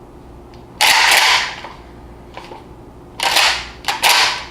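Mossberg 500 12-gauge pump-action shotgun being handled, most likely its slide being worked. There are three loud, sharp metallic clacks: one about a second in, and two close together near the end.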